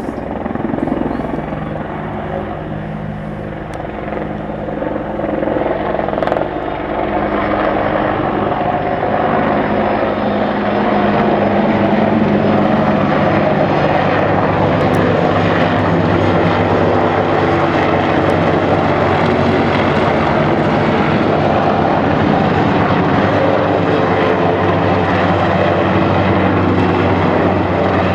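AH-64 Apache helicopter flying over with a steady rotor chop and turbine engine noise. It grows louder over the first ten seconds or so as it approaches, then holds loud and steady.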